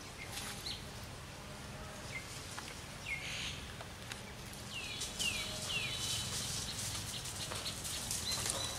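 Short high chirping calls, three falling chirps in quick succession about five seconds in, over light rustling and clicking of dry leaf litter and a steady outdoor background.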